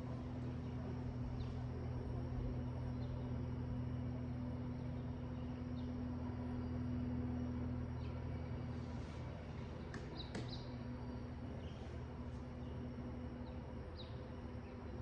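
Scattered short bird chirps, a few seconds apart with a quick pair about ten seconds in, over a steady low hum.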